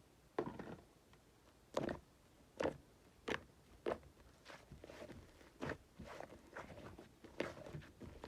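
Slime being pressed and poked by hand, giving sharp sticky pops and clicks: a few well-spaced loud ones, then quicker, softer ones from about four seconds in.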